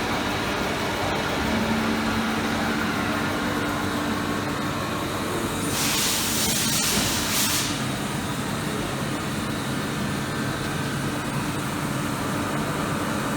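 Okuma LU 15-2SC CNC lathe running, a steady machine hum with a few low held tones. About six seconds in comes a burst of hissing lasting under two seconds.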